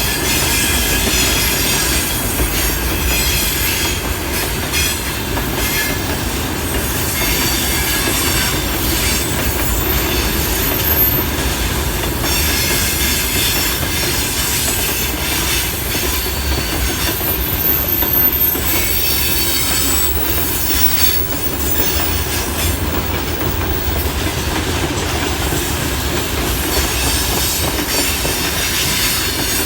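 Freight train wagons rolling past, steel wheels clicking over the rail joints with a high wheel squeal over the steady rumble.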